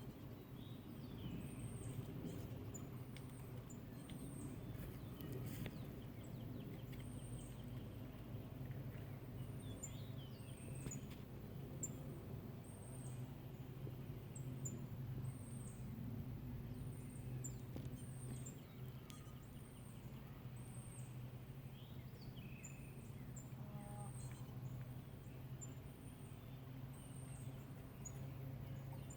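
Woodland ambience: a very high, thin call repeating about once a second, a few fainter bird calls, and a low steady rumble underneath.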